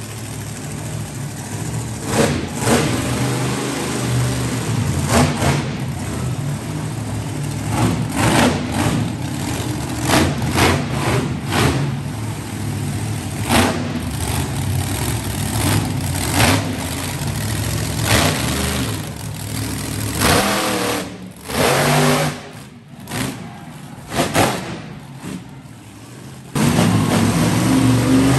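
Monster truck engine running, with repeated short throttle blips, loud in an enclosed arena. The engine sound jumps suddenly louder a couple of seconds before the end.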